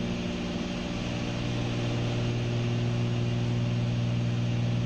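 Cessna 310Q's twin six-cylinder Continental piston engines and propellers droning steadily in cruise flight, heard from the cockpit.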